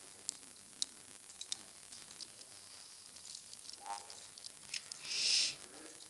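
Computer keyboard keys clicking irregularly as text is typed, over a steady background hiss. A short breathy hiss about five seconds in is the loudest sound.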